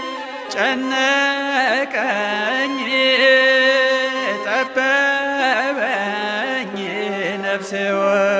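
Ethiopian Orthodox hymn (mezmur) music: a wavering, ornamented melody over steady held low notes, between sung lines.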